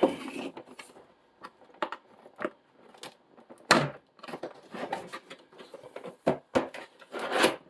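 Cardboard model-aircraft box being worked open and handled: scattered taps, scrapes and rustles, the loudest about halfway in and near the end.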